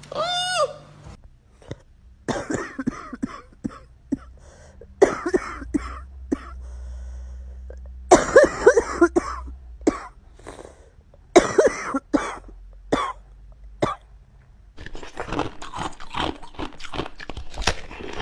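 A person coughing in repeated fits, each a quick run of short coughs, with pauses of a second or two between fits and a longer, denser bout near the end.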